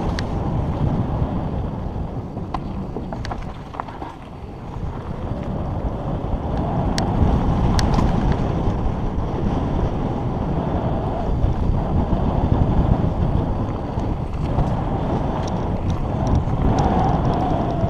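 Wind rushing over the microphone of a mountain bike descending fast on a dirt trail, mixed with the rumble of the tyres on dirt, with a few sharp clicks and rattles from the bike.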